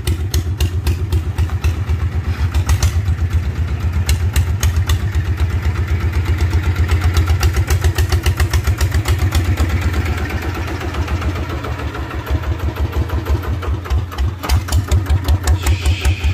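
Homemade power-tiller pickup's engine running with a steady, rapid chugging as the vehicle moves off slowly.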